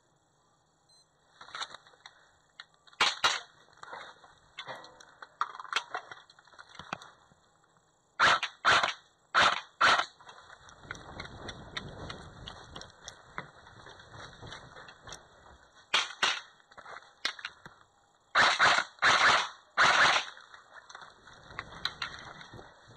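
Airsoft rifle firing single shots in quick groups: a pair, then four, then another pair, then three, with footsteps and rustling between the groups.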